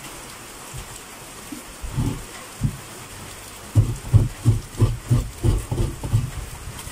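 Coconut half being grated by hand on a wooden grater stool: rhythmic scraping strokes, a couple at first, then a steady run of about three a second, over the steady patter of rain.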